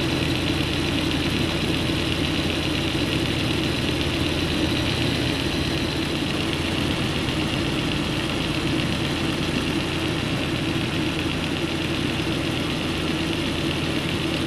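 Antique General Electric belt-drive refrigeration unit running: the electric motor turning the open-drive compressor through its belt and flywheel pulley, a steady, even mechanical hum.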